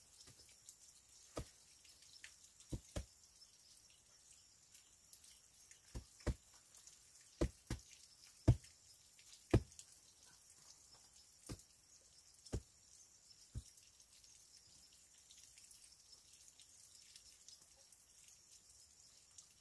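About a dozen sharp, separate knocks of stone on stone at irregular intervals, as rocks are handled and set down by hand, the loudest a little past the middle.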